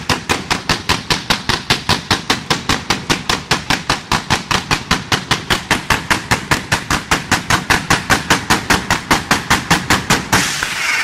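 Ground-fired fireworks fan cakes shooting comets in a fast, even barrage, about five shots a second. Near the end the shots stop and give way to a dense hissing crackle.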